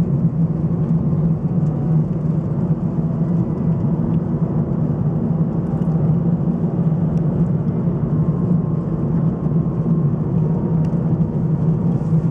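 Steady low drone of a car driving, heard from inside the cabin: engine and road noise.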